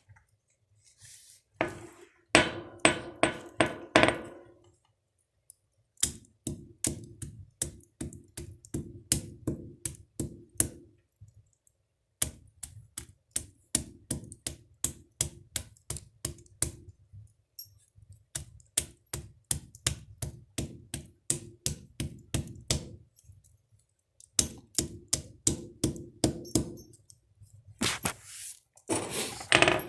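Hammer striking dried, very hard carrot pieces in quick runs of blows, about three or four a second, with short pauses between the runs.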